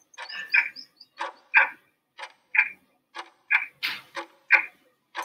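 Countdown timer sound effect: a clock ticking, with pairs of sharp ticks about once a second.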